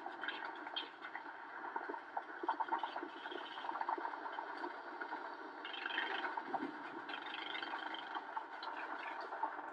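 Dubbed-in battle sound effects over silent archival footage: a muffled, crackling din thick with faint pops, without any single big blast.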